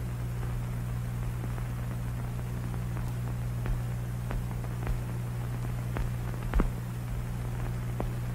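Steady low hum and hiss of an old film soundtrack, with a handful of faint, scattered clicks.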